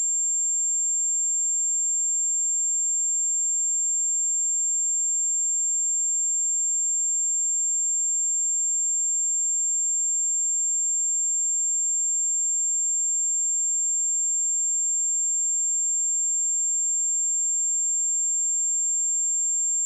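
A steady pure sine-wave test tone at 7373 Hz, a single high-pitched whistle-like tone held at a constant level.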